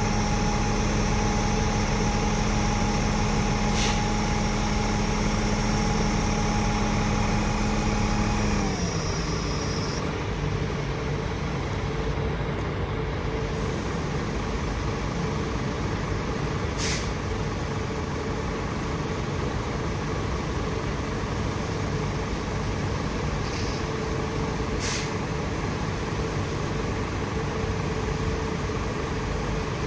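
Scania G 560's V8 diesel engine running at raised revs with a steady whine, which falls in pitch about eight or nine seconds in as the revs drop back to idle. A few short sharp hisses are heard later.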